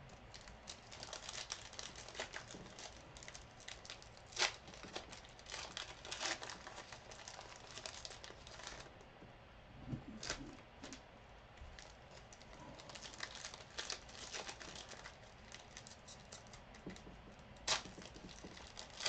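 Trading-card pack wrappers crinkling and tearing as packs of 2018 Elite football cards are opened and handled. The crackling is faint and continuous, with a few sharper snaps: about four seconds in, near the middle and near the end.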